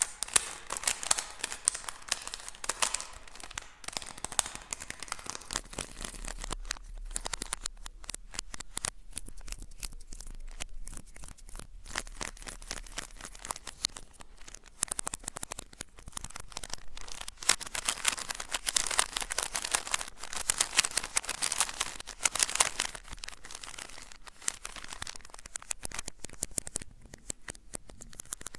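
Close-miked ASMR trigger sounds: objects crinkled, scratched and tapped in a dense crackly stream, louder near the start and again about two-thirds of the way through.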